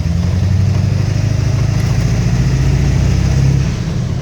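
2000 Ford F350's 7.3 L Power Stroke V8 turbo-diesel pulling under acceleration with a steady drone, easing off near the end as the truck starts to coast.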